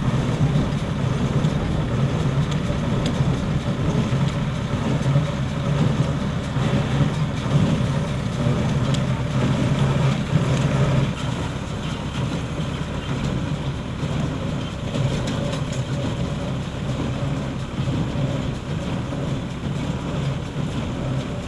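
Kartar farm machine's engine running steadily: a continuous low drone with small rises and dips in level.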